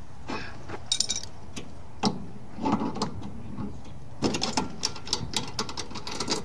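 Metal clicks and clinks of a spanner tightening the flare nut on an air conditioner's copper refrigerant pipe, with a quick run of clicks over the last two seconds. The nut is being closed up while refrigerant gas still flows through the pipe after the air has been purged out.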